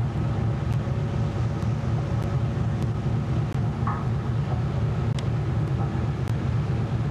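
Steady low rumble of a ship under way at sea, heard on its open deck. A faint voice comes in briefly about four seconds in.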